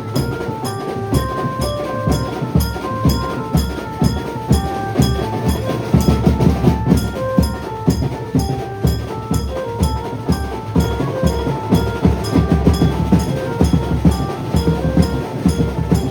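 Banjo party band playing: an amplified banjo melody over fast drumming and steady cymbal ticks, the drumming getting heavier about six seconds in.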